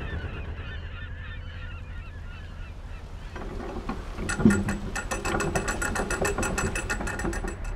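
Canal lock paddle gear being wound up with a windlass: a clunk as the winding starts, then the ratchet pawl clicking rapidly and evenly, about seven clicks a second.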